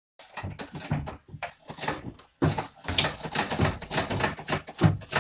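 Sewing machine running in spurts, a rapid mechanical clatter that starts and stops, then runs on steadily for the last few seconds.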